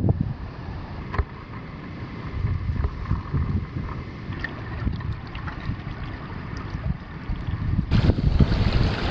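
Wind gusting over the microphone, a low uneven rumble with a few faint ticks. About eight seconds in, it jumps to a louder, brighter rush of wind noise.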